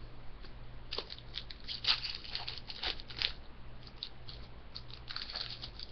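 Trading cards handled by hand, card stock sliding and flicking in a run of light clicks and rustles, busiest from about a second in to past three seconds and again near the end. A steady low electrical hum sits underneath.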